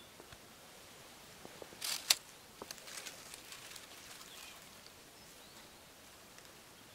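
Faint rustling and crackling of plant stems and dry leaf litter being handled by fingers, with a short rustle and one sharp click about two seconds in, then a few small crackles.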